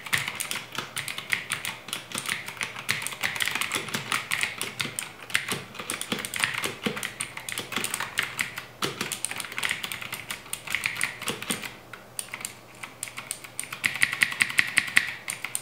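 Typing on an Ajazz AK33 mechanical keyboard with blue clicky switches (Cherry MX Blue clones): a fast, steady patter of sharp key clicks, with a short pause near the end before a quick burst of keystrokes.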